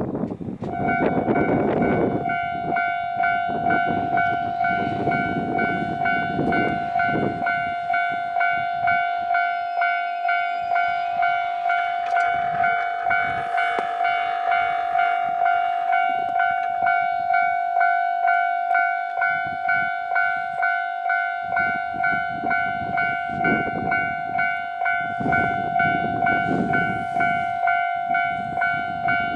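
Japanese level-crossing warning bell starting about a second in and ringing on at an even pace, one steady electronic tone pulsing over and over. A low rumble comes and goes beneath it and grows near the end as the freight train nears the crossing.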